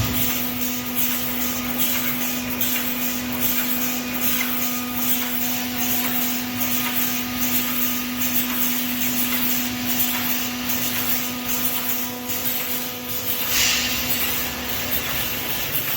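Automatic 3D wire mesh panel welding machine running: a steady hum under a fast, regular ticking, with a brief hiss near the end.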